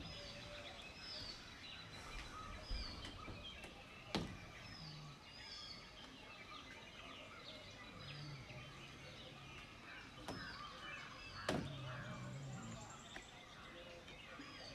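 Several birds chirping and calling, one repeating a short high hooked note every so often, over a steady outdoor hiss. A couple of sharp clicks stand out, about four seconds in and again late on.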